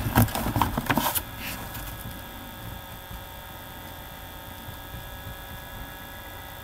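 A book being handled: a quick burst of rustling and knocks in the first second or so, then only a steady electrical hum.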